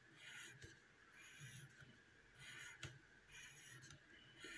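Faint scratching of a pencil writing on paper, in short strokes about once a second, with a light tick about three seconds in.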